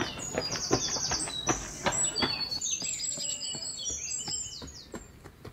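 A songbird singing a fast, varied run of high chirps and trills, with a rapid repeated trill near the start. Running footsteps on paving thud steadily underneath for the first couple of seconds.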